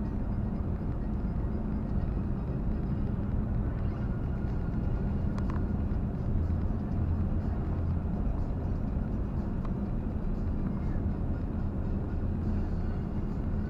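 Steady low drone of a vehicle's engine and road noise heard from inside the cabin while driving at motorway speed.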